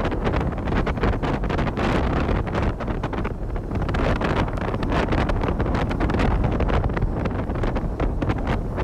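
Wind buffeting the microphone of a phone on a motorboat under way: a loud, steady rush broken by rapid gusty thumps.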